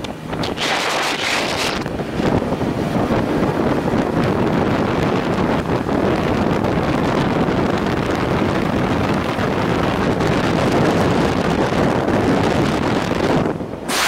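Wind buffeting the microphone of a BMW R1100RT motorcycle under way, with its engine and road noise underneath. About two seconds in, as the bike enters a rock tunnel, the gusts give way to a denser, steady, lower rush. The gusty wind returns near the end as it comes out.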